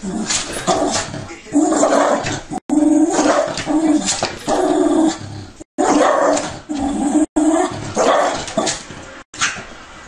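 Small white terrier barking and whining excitedly in a string of drawn-out, pitched barks, about a dozen in quick succession, worked up by dogs on a television screen.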